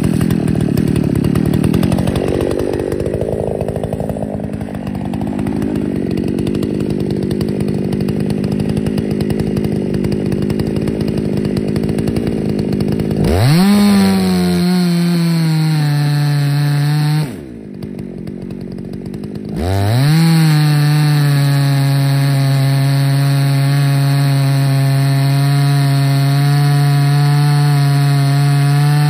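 Ported Husqvarna 288XP two-stroke chainsaw on an Alaskan chainsaw mill, ripping a white oak log into slabs. It runs roughly for about thirteen seconds, then revs up into the cut. It eases off for about two seconds, then revs up again and holds a steady full-throttle pitch as it cuts.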